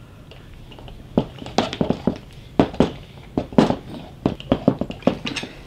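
Clockwork gramophone motor's mainspring being wound by its crank handle: uneven short clicks from the winding mechanism, starting about a second in and coming several a second.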